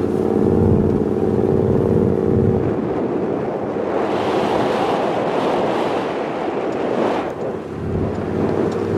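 Off-road vehicle engine running at a steady pitch. About three seconds in it is covered for several seconds by a loud rushing noise, and near the end its steady note returns.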